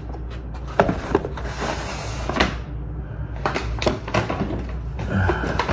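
Takeout packaging being handled: a few sharp knocks and clicks, with a stretch of rustling, over a low steady hum.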